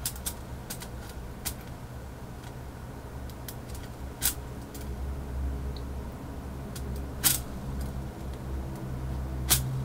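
Scattered small sharp clicks and ticks of diode wire leads being pushed into a keyboard circuit board's holes and tapping against the board, over a low steady hum that grows a little louder about halfway through and again near the end.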